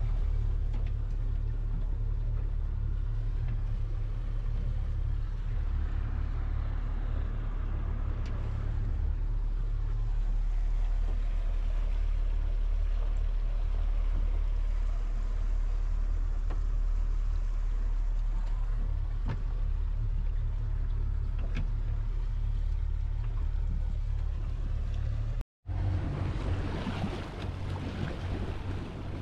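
Steady low engine rumble of a vehicle under way. After a cut near the end, a hissier stretch of wind and water noise.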